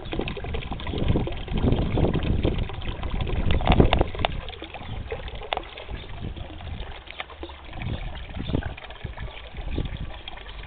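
Small garden pond fountain splashing and trickling as its jet falls back onto the water, with irregular low rumbling that is loudest about four seconds in.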